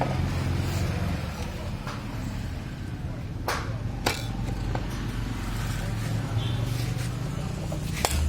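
Motorcycle engine idling steadily, with a couple of sharp clicks about halfway through.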